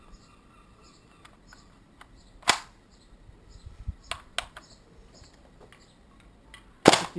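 Clicks from a WE L85A2 gas blowback airsoft rifle being handled and cocked: a sharp one about two and a half seconds in and two lighter ones about four seconds in. Near the end comes a single shot with the blowback bolt cycling.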